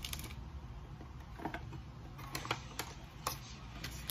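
Scattered light clicks and taps of paper and cards being handled on a desktop, about six in all, over a low steady hum.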